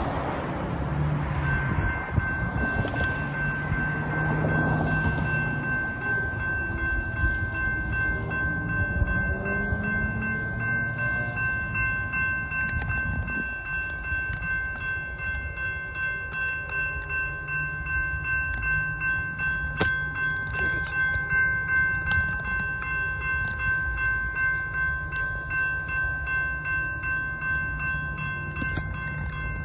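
Railroad crossing warning bell, electronic, starting about a second in and ringing steadily in even pulses as the crossing activates for an approaching train. Passing road traffic is heard early on, and a low rumble grows underneath from about halfway.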